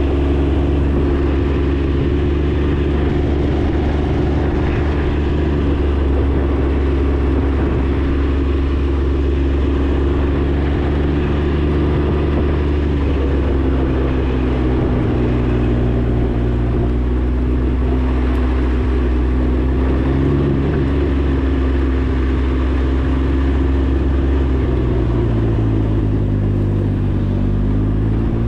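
Can-Am Ryker 900's three-cylinder engine running under way at a steady cruise. The revs ease off a little under halfway through, drop further near the end, then climb again as it accelerates.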